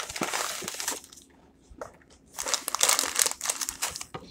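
Crinkling and crackling of a boxed stuffing mix's packaging being handled and opened by hand. It comes in two spells: a short one at the start and a longer, busier one from about halfway to near the end.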